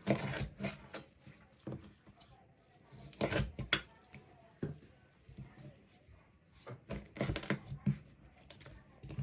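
Irregular knocks and clinks of kitchen utensils and dishes as raw chicken pieces are handled and set down, bunched in a few short clusters with quiet gaps between.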